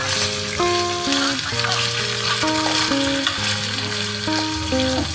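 Food sizzling in a frying pan with a steady hiss, under a simple melody of background music.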